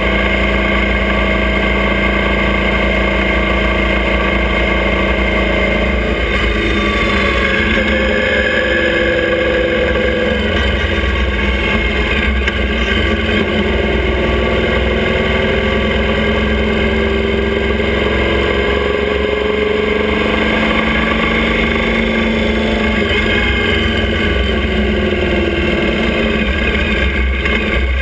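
Motorcycle engine of a sidecar outfit running under way, heard close up, its pitch shifting and gliding up and down several times as the rig changes speed.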